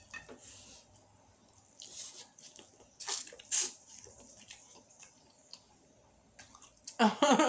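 Close-up biting and chewing of corn on the cob: scattered crisp crunches of kernels and wet mouth sounds. Near the end comes a short voiced sound from the eater, the loudest moment.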